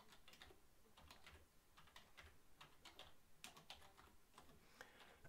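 Faint, irregular clicking of typing on a computer keyboard, a few keystrokes a second.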